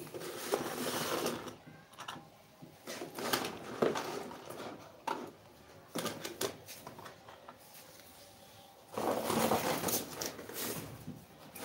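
Handling noise from toy drones, their plastic remote controls and cardboard boxes being picked at and moved: irregular rustling with sharp clicks and knocks, the longest stretch of rustling near the end.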